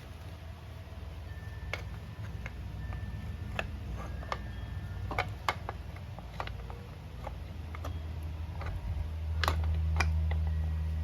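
Small metal parts clicking and tapping irregularly as a motorcycle clutch release mechanism is fitted back into place, over a steady low hum that grows louder about nine seconds in.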